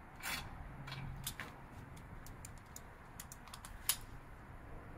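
Scattered light clicks and taps of hand tools and bolts as a skid plate is fitted and fastened under a dirt bike's engine, coming irregularly with one sharper click a little before the end.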